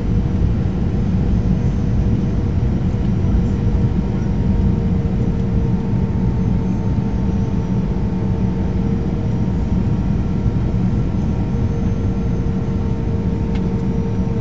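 Steady cabin noise of a Boeing 737-500 in flight, heard from a window seat beside the wing. There is a low rumble of engines and airflow, with a steady droning tone from the CFM56-3 turbofans and a fainter higher tone above it.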